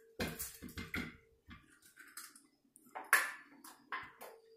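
An egg being cracked and broken open into a glass bowl: a run of small cracks and taps in the first second, then a few sharper clinks about three seconds in as the shell pieces are set down.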